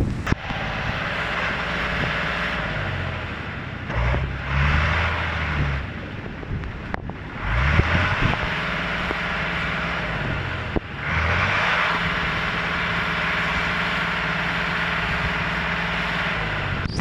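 A motor vehicle's engine running, its pitch rising and falling several times, over a steady rushing noise.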